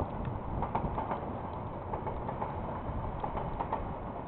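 Freight train of container wagons rolling past: a steady low rumble with frequent light, irregular clicks and knocks.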